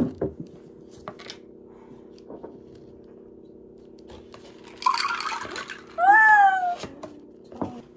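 A short animal call that rises then falls in pitch, about six seconds in, with a briefer, rougher sound a second before it, over a steady low hum.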